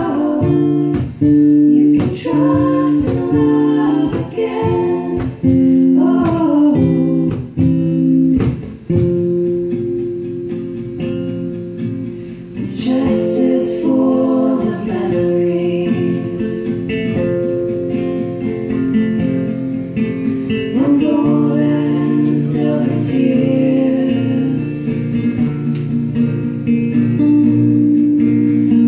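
Live acoustic music: two acoustic guitars strummed while several women sing together in harmony. The strumming is choppy for the first several seconds, then the voices hold long notes.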